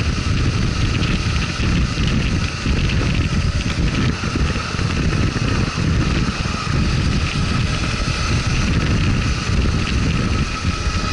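Motorcycle running steadily under way, with a steady high whine above its sound and wind rumbling on the microphone.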